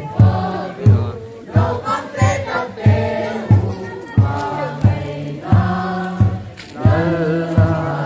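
A congregation singing a hymn together over a steady drum beat, about three beats every two seconds.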